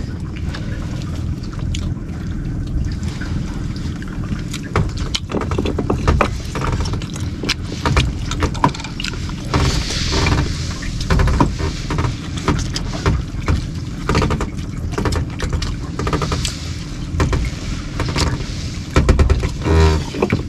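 Fishing boat's engine running with a steady low rumble, with scattered clicks and knocks of plates and handling over it.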